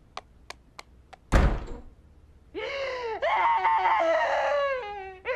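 Cartoon sound: four light taps of hoofsteps, then a door slams shut a little over a second in. After a short pause a pony's voice wails long and loud, wavering in pitch: an outburst of crying.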